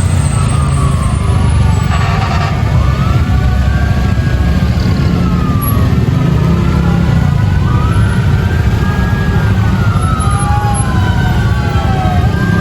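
Fire truck sirens wailing, slow rises and falls in pitch from more than one siren overlapping, over a heavy low rumble.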